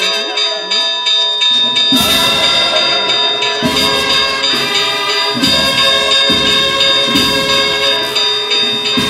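Spanish procession-style bugle-and-drum band music (banda de cornetas y tambores), added as a soundtrack: held brass notes, with the drums coming in about two seconds in.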